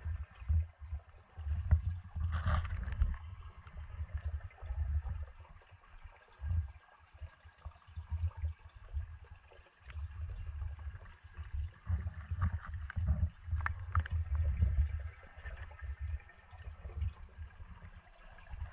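Underwater pond sound picked up by a submerged camera: a low, uneven rumble of moving water that swells and fades, with a few faint clicks.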